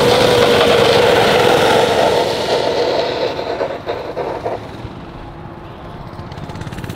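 Small gas mini bike engine running hard as the bike rides past, loud at first and fading away after about two and a half seconds.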